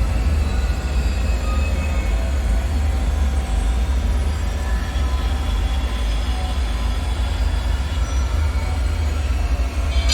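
Dark ambient soundscape: a steady, deep rumble with faint drifting metallic tones over it, and a high metallic screech just at the end.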